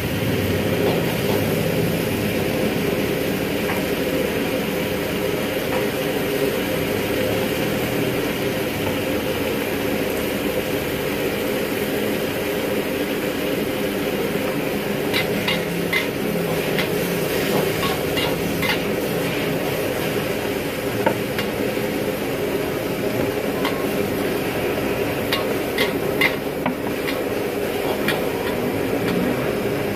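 Vegetables sizzling in a hot steel wok over a steady background hiss, with the metal ladles scraping and clanking against the wok as the food is stirred. There are clusters of sharp clinks in the second half.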